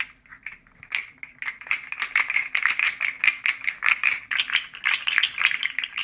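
Articulated plastic rainbow slug fidget toy being flexed and twisted in the hands, its segments clicking and rattling rapidly against each other.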